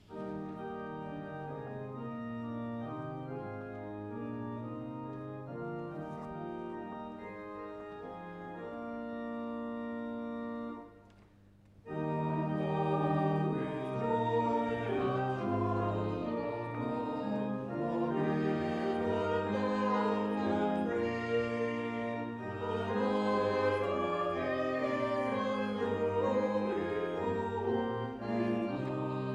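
Church organ playing the introduction to a hymn in held chords, ending about ten and a half seconds in. After a short pause the organ starts again and the choir and congregation sing the hymn with it, fuller and louder.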